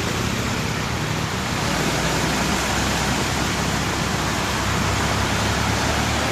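Steady rushing of water, an even hiss that does not break or change.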